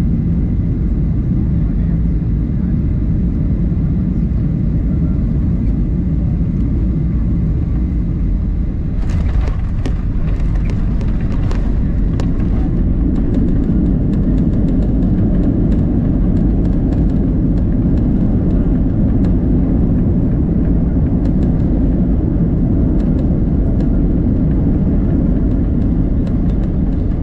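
Cabin sound of a Boeing 737-800 landing: steady engine and airflow rumble on short final, then touchdown about nine seconds in, with a run of rattles and knocks through the cabin. The rumble grows louder as the jet rolls out on the runway, with more scattered rattling.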